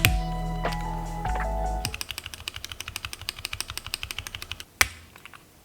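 Background music for about the first two seconds, then rapid typing on a mechanical keyboard fitted with Wuque Studio Yellow linear switches: many fast clicks a second, with one louder sharp knock near the end.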